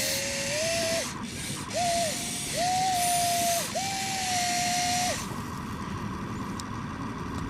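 Electric gear motors of a Huina RC excavator whining in four short runs of about a second each, with a gear hiss over the whine, starting and stopping as the machine's functions are worked. They stop about five seconds in, leaving a fainter steady hum.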